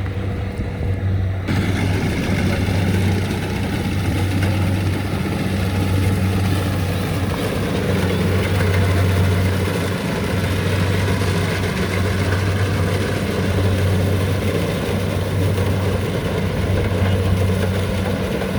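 Rice combine harvester running steadily with a constant low engine hum; a broader mechanical rush joins about a second and a half in and stays to the end.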